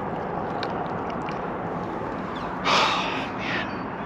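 A person's short sharp breath out, like a gasp, about two-thirds of the way through, with a softer second breath just after, over steady background noise.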